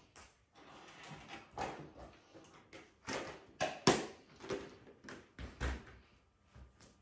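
VCR loading and starting to play a VHS tape: a series of mechanical clicks and clunks, the loudest about four seconds in, with a brief low rumble shortly after.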